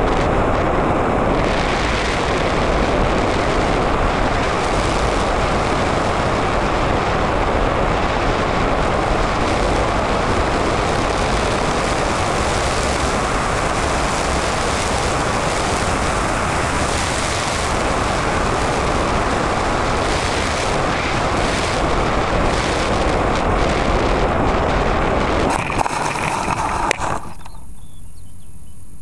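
In-flight noise picked up by the onboard camera of an Easy Star 2 RC model plane: a steady, loud rush as it flies low over the fields. About 26 seconds in there are a few knocks as it touches down in the grass, and after that only a low wind rumble remains.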